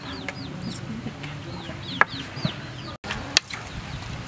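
Chickens clucking, with repeated high, falling chirps, and a few sharp clinks of a metal spoon against the stainless steel mixing bowl.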